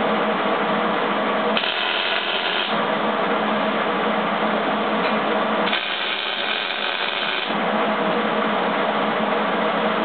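Millermatic 175 MIG wire-feed welder arc crackling in two short welds on quarter-inch steel, the first about a second and a half in for about a second, the second about six seconds in for nearly two seconds, over a steady mechanical hum.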